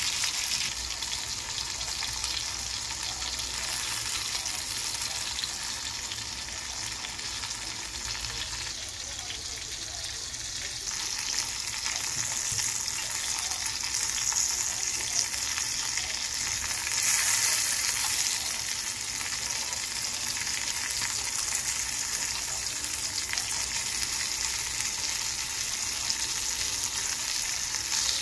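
Flour-breaded shrimp deep-frying in hot olive oil: a steady sizzle that briefly grows louder about two-thirds of the way through.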